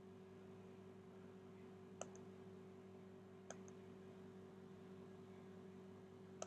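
Three faint clicks of a computer's pointing-device button, about two, three and a half and six seconds in, the first two each with a fainter second click just after. A steady low electrical hum lies under them; otherwise near silence.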